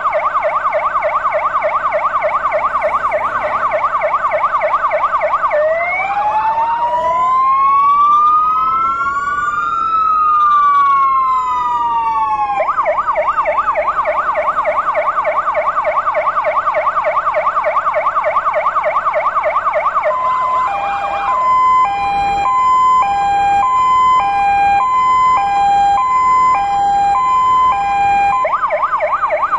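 Fire engine sirens sounding continuously while the vehicles stand parked: a fast yelp, changing about six seconds in to a slow rising-and-falling wail from two sirens slightly out of step, back to the yelp about thirteen seconds in, then a two-tone hi-lo from about twenty-one seconds, and the yelp again near the end.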